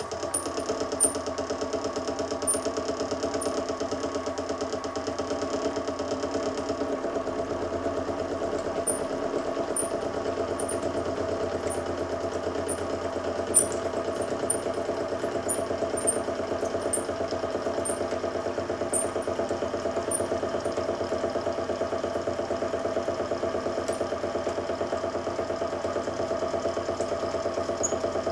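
Sieg SX2P mini mill running under load, its spinning milling cutter face-milling an aluminium block: a steady machine hum with a whine of several steady tones and the hiss of cutting, with scattered small sharp ticks of chips flying.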